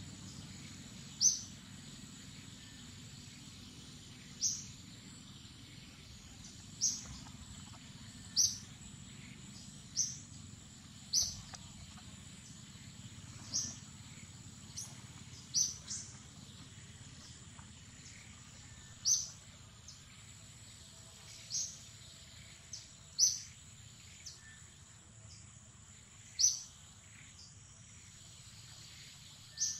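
A bird repeating a short, high chirp every two seconds or so, over a steady high-pitched insect drone and low outdoor background noise.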